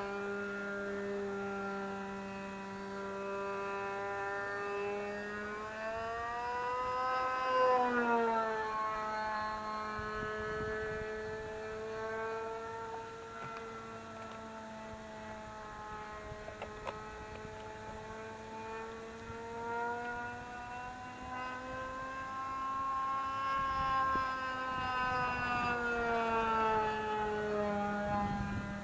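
Small model-airplane engine running in flight, a steady high whine whose pitch rises and then drops twice as the plane comes by and goes away. It runs cleanly on a freshly swapped plug.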